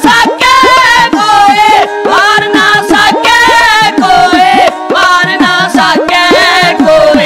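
Punjabi dhadi music: male voices singing with a wavering vibrato, accompanied by dhad hourglass drums and a bowed sarangi. The dhad strokes come several times a second, and each one drops in pitch.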